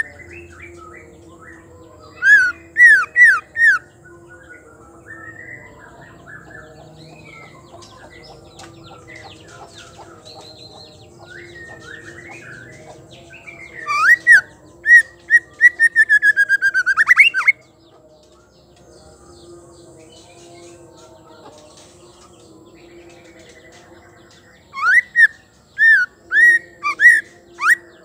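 White-rumped shama calling: three loud bursts of sharp, upslurred whistled notes, the middle one ending in a fast rattling run of notes. Soft twittering and chatter fill the gaps between the bursts.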